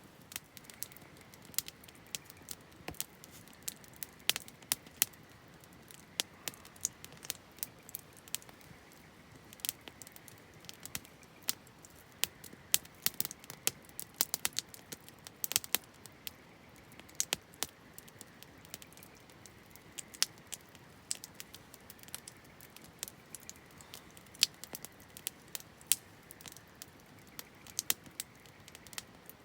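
Wood campfire crackling, with irregular sharp pops and snaps, sometimes several in quick succession, over a low steady background.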